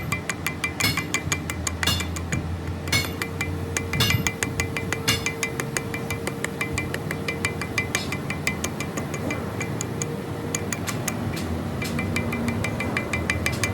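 Quick, repeated light strikes of a hammer on steel, each with a short metallic ring, over a steady low machine hum.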